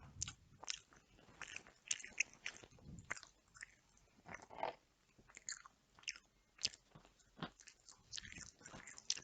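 Close-miked chewing and biting of Nando's chicken: a steady run of short, irregular mouth sounds, with a few louder bites among them.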